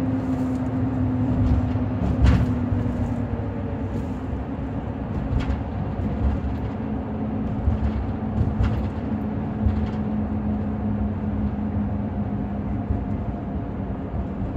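Road and engine noise inside a car cruising on a freeway: a steady rumble with a low hum that slowly drops in pitch, and a few light knocks.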